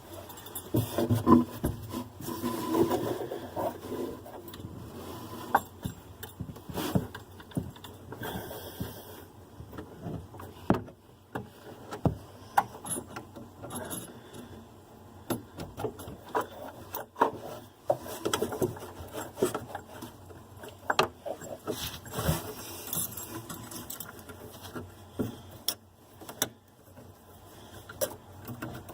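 Hands working drain and stopper parts under a bathroom sink: irregular clicks, knocks and scraping, busiest in the first few seconds.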